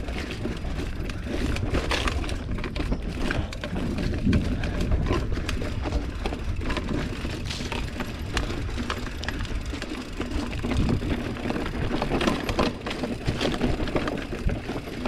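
GT Avalanche mountain bike riding over a rough dirt trail: tyres on dirt and leaves, with the bike rattling in frequent clicks and knocks over a steady low rumble.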